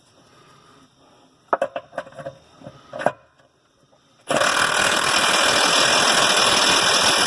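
A few light metal clinks as a socket goes onto a nut, then about four seconds in an impact wrench starts and runs steadily, hammering a lug nut tight on a tractor dual wheel.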